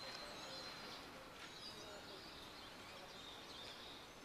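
Faint outdoor background ambience: a low even hiss with a thin steady high-pitched whine and a few faint chirps.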